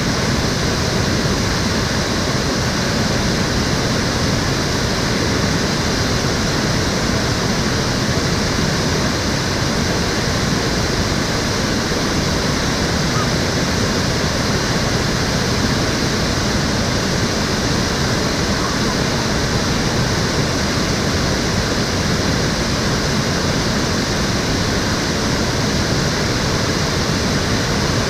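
Stream water flowing, a steady, unbroken rush.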